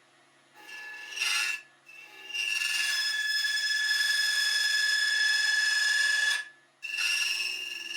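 A cutting tool turning down a brass rod on a lathe: a scraping cut with a steady high-pitched ringing squeal. It comes in two short passes, then one long cut of about four seconds that stops and starts again near the end.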